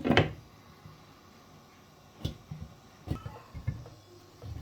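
Cookware being handled: one sharp knock just after the start, then a few fainter clicks and taps.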